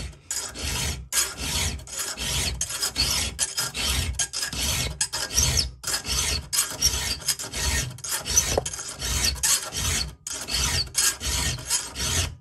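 Round chainsaw file rasping through a chain's cutter tooth in steady hand strokes, about two a second, with a brief break about ten seconds in. The file is cutting back a damaged cutter to remove chipped chrome.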